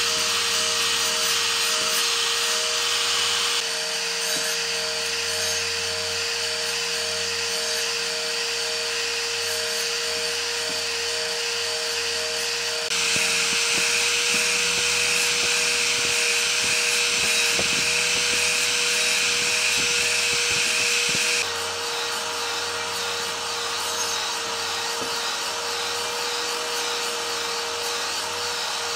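Makita sliding miter saw running at full speed as its blade cuts a series of shallow notches across wooden strips: a steady motor whine under a loud high hiss, jumping in level abruptly a few times.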